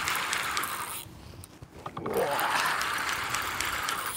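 A fishing reel being wound in fast under the load of a hooked fish, a whirring run of fine ticks, in two spells with a pause of about a second between them.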